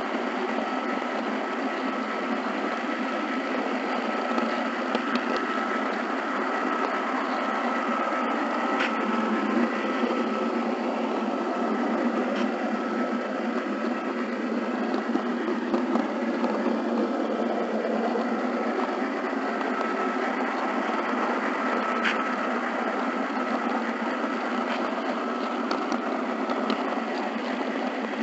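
HO scale model train running along the track, heard from a camera riding on it: a steady whir of the small motor, gearing and wheels on rail, with a thin steady whine and a few faint clicks.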